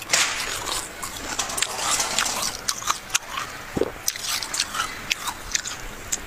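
Snow being bitten and chewed close to the microphone: irregular crisp crunches and crackles.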